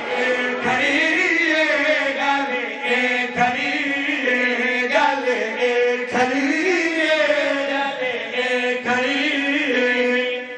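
Men's voices chanting a Shia devotional qasida together in long, wavering held lines, sung without pause.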